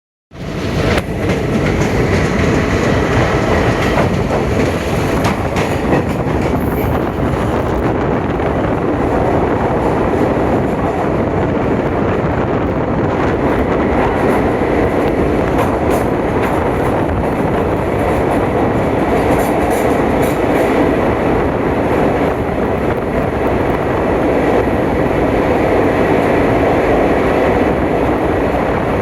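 Passenger train running at speed: a steady rumble of wheels on track with faint clicks from the rail joints.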